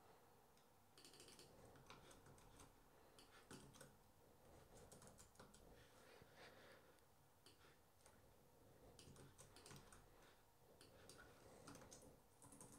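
Faint typing on a computer keyboard: scattered, irregular key clicks with short pauses between runs.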